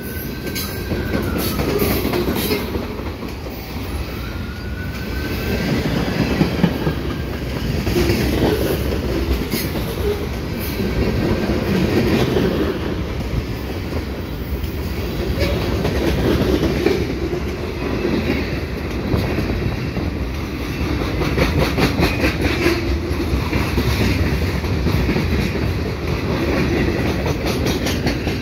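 CN freight train cars rolling past in a steady rumble, the wheels clicking rhythmically over rail joints.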